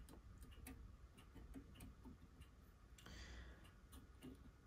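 Faint, irregular small clicks of steel tweezers against a plastic model hull as a tiny ladder's hooks are slotted into small drilled holes, with a brief soft rustle about three seconds in.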